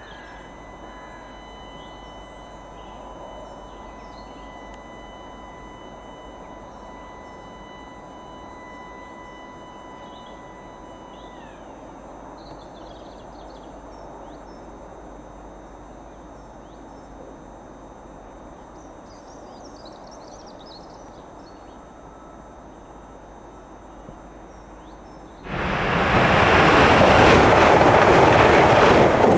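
A TransPennine Express electric multiple unit passes close by at speed: a sudden loud rush of wheels on rail and air starts about 25 seconds in and stays loud. Before it there is only low background rumble, with a steady high tone for the first ten seconds or so and a few faint bird chirps.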